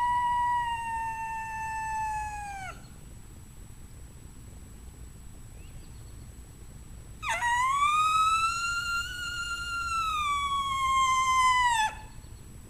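Custom diaphragm coyote howler call blown in long coyote howls. The tail of one howl is held steady and then drops off about three seconds in. After a pause of about four seconds, a second long howl rises in pitch, holds, and slides down, ending shortly before the end.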